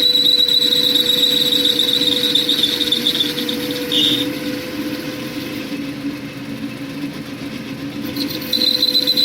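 Metal-turning lathe running, with a steady hum and a high-pitched squeal. The squeal stops about four seconds in and comes back near the end.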